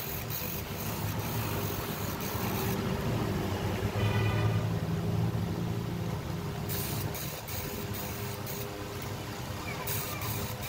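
Electric chainsaw chain sharpener running, its motor humming steadily while the grinding wheel is brought down onto the chain's cutter teeth in short, repeated grinding passes. The grinding stops for a few seconds in the middle while the motor hums on.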